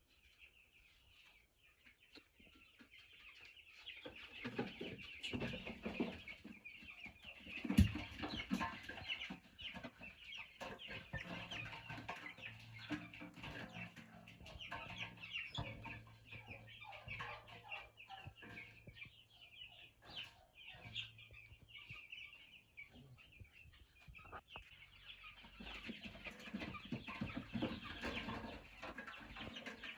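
A flock of two-week-old chicks peeping continuously, a dense high-pitched chorus, with scattered knocks and thumps, the loudest about eight seconds in.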